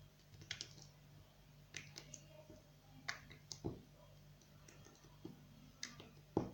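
Faint, scattered clicks and small pops of slime being squeezed and stretched in the hands, with one sharper click near the end.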